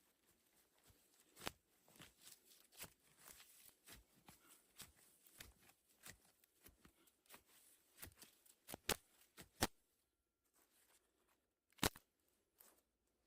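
Twigs and branches crackling and snapping irregularly, with a few sharp, louder snaps, the loudest about nine and twelve seconds in.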